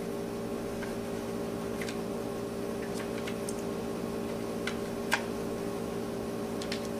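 Steady low hum of several tones with about a dozen faint, short clicks and taps, the loudest about five seconds in: a preacher handling his Bible pages at a wooden pulpit.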